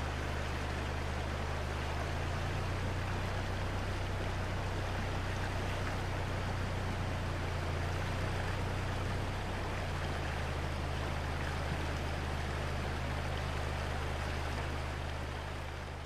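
Hoh River flowing: a steady rush of water with a deep low rumble underneath, fading out near the end.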